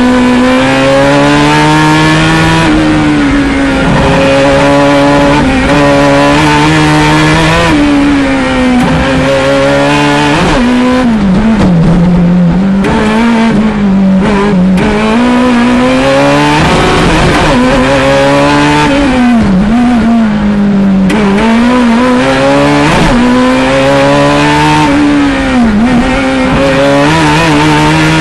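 Race-prepared classic Fiat 500 Maxi's air-cooled two-cylinder engine, heard from inside the cabin, revving hard and falling away again and again as the car accelerates and brakes through the slalom. The engine note is loud and never stops.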